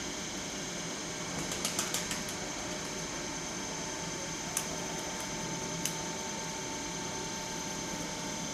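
Steady electrical hum of a DB Class 425 electric multiple unit at a station platform. A quick run of about six sharp clicks comes about a second and a half in, and two single clicks follow a few seconds later.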